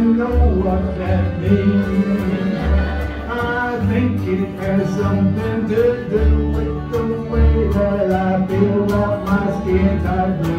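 Small acoustic band playing an instrumental passage of a country-style song: plucked upright bass under strummed acoustic guitars and accordion.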